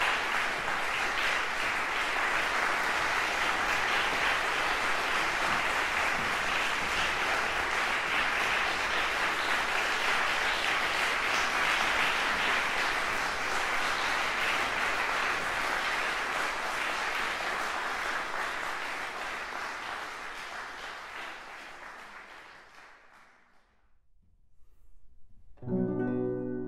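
Audience applauding steadily in a concert hall, the clapping fading away about four-fifths of the way through. After a brief hush, plucked-string music starts near the end.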